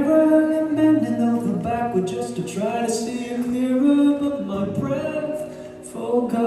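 A man singing live into a microphone, holding several long, sliding notes, with acoustic guitar accompaniment underneath.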